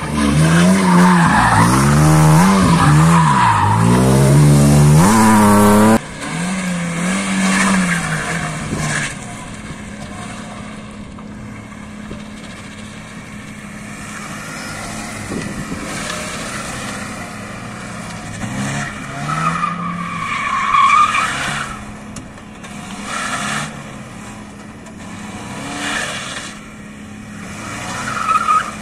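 BMW E36 engine revving hard, its pitch rising and falling again and again as the car slides around an obstacle; it cuts off abruptly about six seconds in. Then a Ford Sierra saloon's engine revs more quietly, with brief tyre squeals about twenty seconds in and again near the end.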